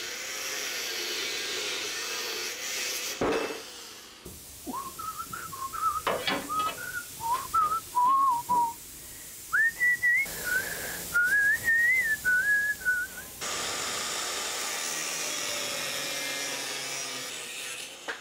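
Angle grinder cutting a steel boat rib, a steady high hiss that stops after about three seconds. Then a person whistles a wandering tune for about eight seconds, and a steady hiss comes back near the end.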